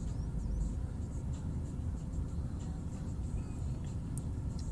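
Steady low background rumble, with no meow in between the cat's calls.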